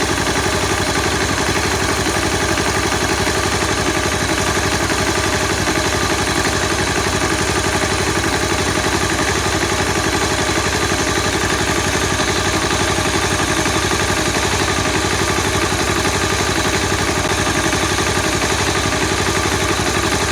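Honda CBR250R single-cylinder engine idling steadily, heard up close, with the cam chain tensioner noise being tuned out: a loose tensioner lets the cam chain strike and rattle.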